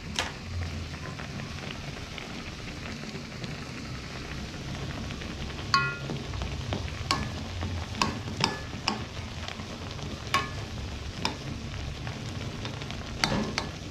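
Metal cooking utensil stirring noodles in a pan, striking the pan about ten times with sharp clinks, one ringing briefly, over a steady low rush of the food cooking on the stove.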